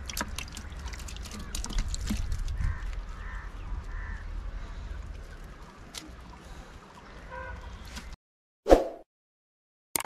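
Outdoor ambience with a low rumble and a bird calling several times in short calls. About eight seconds in the sound cuts off abruptly to silence, broken by one short, loud sound.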